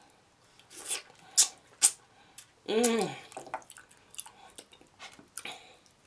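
Close-up wet eating noises from a person eating saucy pig feet by hand: sharp lip smacks and sticky mouth clicks, with a short hummed "mm" about three seconds in.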